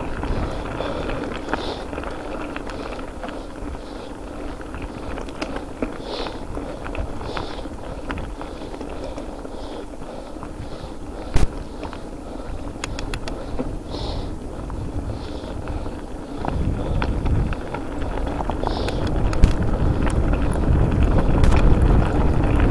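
Mountain bike rolling over a rough track: steady tyre noise with small rattles and clicks, and one sharp knock about halfway through. Wind buffeting the microphone grows louder over the last third.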